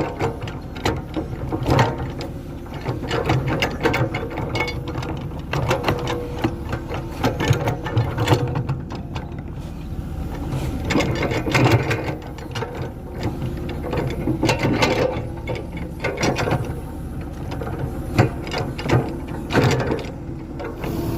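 Liugong 915E crawler excavator working: the engine runs steadily under a dense, irregular clatter of metal rattling and knocks.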